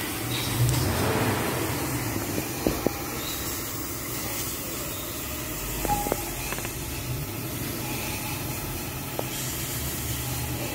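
Steady low mechanical hum under an even hiss, with a few light clicks in two quick pairs, about a quarter and about halfway in.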